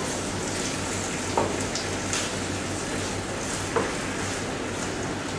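Sliced garlic and mushrooms sizzling in butter in a hot pan while being stirred, with a few light knocks of the utensil against the pan.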